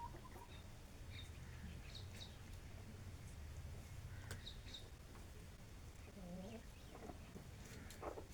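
Desi chickens calling faintly: scattered short high peeps and a low cluck about six seconds in, over a steady low hum.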